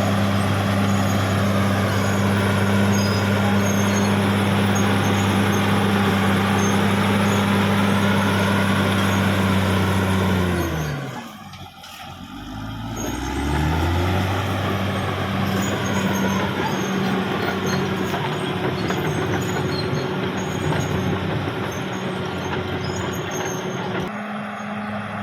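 Caterpillar D6R XL bulldozer's diesel engine running steadily under a wavering high squeal. About halfway through, the engine note sinks sharply and goes almost quiet for a moment, then climbs back up and runs on.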